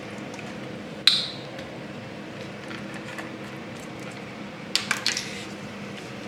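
Kitchen utensil clinking against a cooking pan: one sharp ringing clink about a second in, then a quick run of three or four clicks near five seconds, over a steady low hiss.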